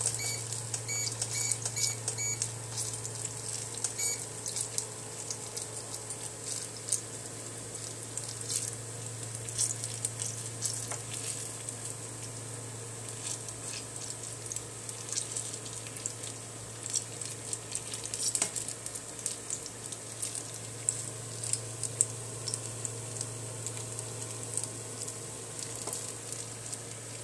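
Banana fritters deep-frying in hot oil, a steady sizzle and crackle over a constant low hum. Near the start, a quick run of short electronic beeps from the induction cooktop as its heat is turned down, with one more beep a couple of seconds later; a spatula stirs and turns the fritters now and then.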